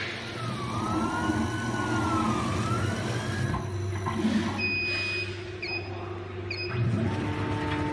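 CNC laser router's stepper motors whining as the machine moves, over a steady low machine hum. The whine's pitch rises and falls with the motor speed, then gives way to steady tones that stop and start with short breaks as the moves change.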